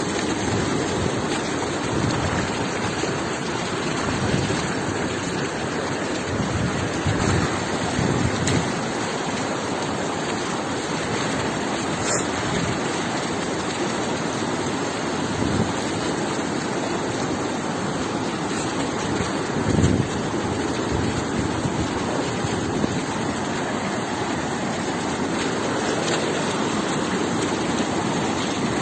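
Steady rushing water noise of a storm flood: heavy rain and flowing floodwater, with a few brief low thumps.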